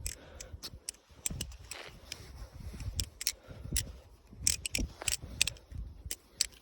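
Balisong (butterfly knife) being flipped through a fast combo, its handles and blade clacking together in sharp, irregular metal clicks, sometimes in quick pairs.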